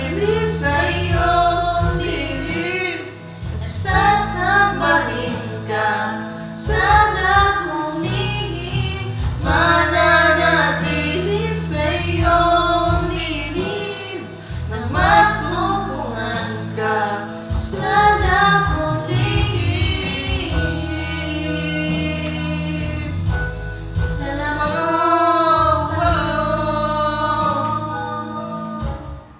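A man and a woman singing a duet over a backing track with steady bass notes; the song fades out near the end.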